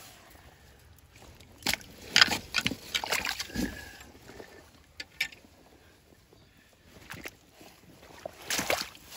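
Steps through shallow creek water and gravel: water sloshing and splashing in irregular bursts, with a few sharp clicks.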